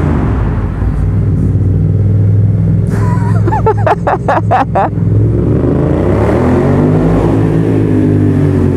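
Yamaha FZ-07's parallel-twin engine, fitted with a Leo Vince full exhaust, running loud under throttle inside a parking garage, the revs climbing from about six seconds in.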